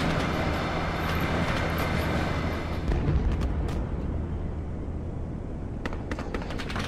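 Passenger train coaches rolling past on the rails, the wheel noise fading over the first few seconds as the train pulls away. A steady low rumble runs underneath, and a few sharp clicks come near the end.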